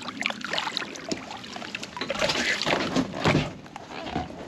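A big catfish splashing at the side of a boat as it is grabbed and hauled out, water pouring and dripping off it, with a few knocks.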